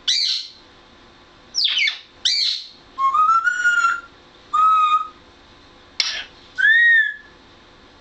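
African grey parrot calling: a few short, harsh squawks mixed with three clear whistled notes, the first rising, the last arching up and back down.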